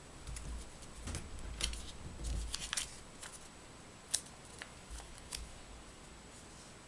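Sheet of origami paper being folded and creased by hand: soft rustles and crinkles, with one sharp crackle about four seconds in.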